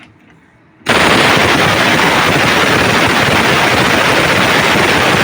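A power tool in a garage starts abruptly about a second in and runs loud with a fast, dense rattle, then stops and winds down with a falling whine near the end.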